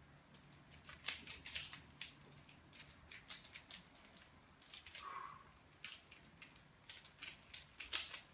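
Plastic layers of a Rubik's Cube mirror puzzle being turned by hand, giving quick irregular clicks in bursts, the loudest cluster near the end.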